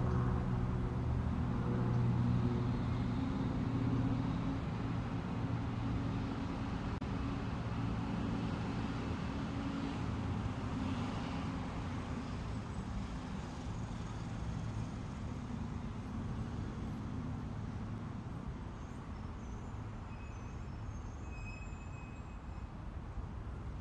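A low steady rumble with a faint hum in it, slowly fading out.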